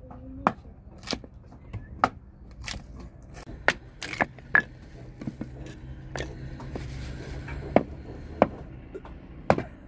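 Slow, irregular chopping: about a dozen sharp knife strokes on a board, with some scraping between them.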